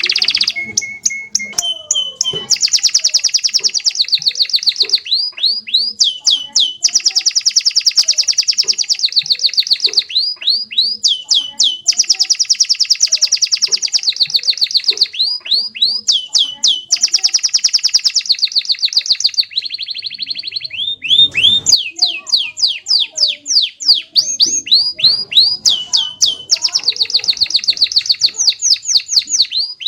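Domestic canary singing a long, fast song of trills and rolls: rapid runs of repeated notes, many sweeping downward, others held on one pitch, switching to a new phrase every second or two. It is a tutor song ('masteran') played for young canaries to learn from.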